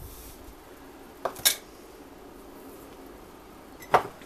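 Kitchenware clinking and knocking: a few short, sharp knocks, two about a second in and two more near the end, over a quiet room background.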